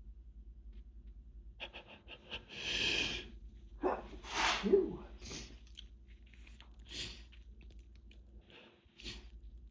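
A person's hay-fever sneeze: a loud breathy build-up, then a forceful, wet sneeze about four and a half seconds in, followed by a few short sniffs.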